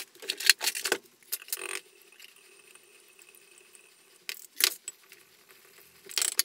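Fork beating two raw eggs in a small bowl: quick metallic clinks of the fork against the bowl in the first couple of seconds, a lull, then a few more strokes near the end.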